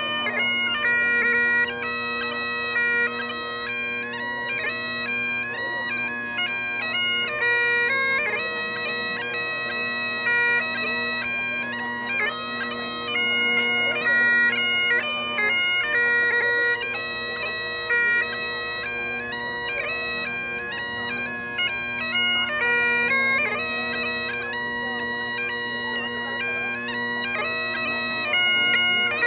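Bagpipes playing a traditional tune: a melody stepping from note to note over steady, unbroken drones.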